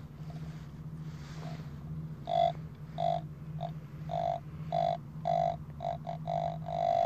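Metal detector giving short pitched beeps, about ten of them starting a couple of seconds in and coming faster near the end: its normal response to the spade close by. A steady low hum runs underneath.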